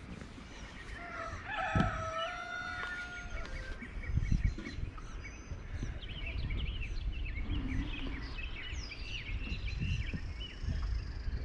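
A rooster crowing once, one long drawn-out call about a second in, followed by small birds chirping. A low rumble of wind on the microphone comes and goes, loudest about four seconds in.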